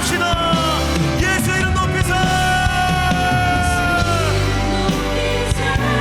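A live worship band and singers performing a praise song: voices hold long notes over drums and a steady bass line.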